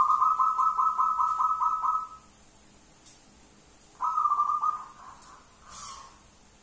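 Zebra dove (perkutut) cooing: a fast run of high, pulsed coos, about six notes a second, then a second shorter phrase about four seconds in. Its high, shrill coo is the 'screaming' (menjerit) style that keepers prize.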